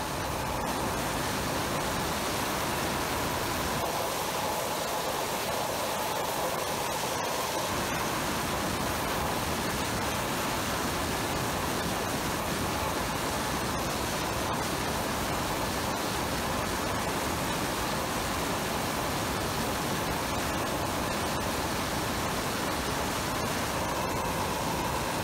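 Propane forge burner with a Hyper Force nozzle, which mixes the propane with a jet of 100 PSI compressed air, firing at full blast. It makes a steady, even rushing noise that does not change.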